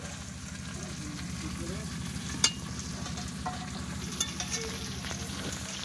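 Chicken pieces sizzling in a steel wok while a metal spatula stirs and scrapes them, with scattered clicks of the spatula on the pan and one sharp knock about two and a half seconds in; the meat is at the kosha stage, being dry-sautéed with spices. The sound cuts off just before the end.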